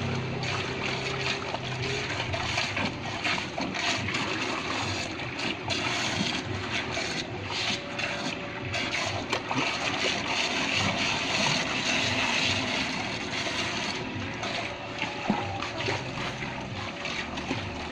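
Steady rush of water spraying and splashing from an open water supply pipe in a trench, with hands working in the spray.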